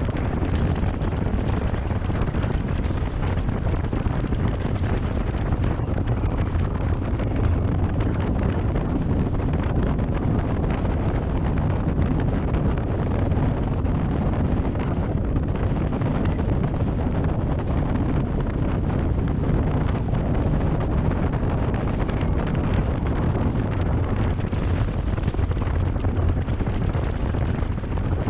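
Steady wind rush on the microphone over the engine and water noise of a 26-foot Cheetah Wildcat powerboat running at about 40 mph.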